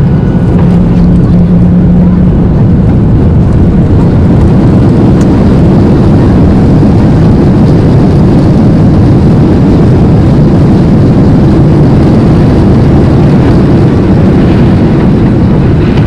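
Steady cabin noise inside a Boeing 737-800 in flight: the even rush of airflow and engines, unchanging throughout. A low hum sits under it at the start and drops out about two seconds in.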